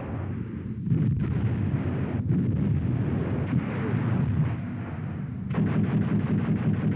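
Anti-aircraft gunfire and shell bursts in a dense rumbling barrage, with sharp reports about one and two seconds in. From about five and a half seconds in, rapid, evenly spaced automatic fire.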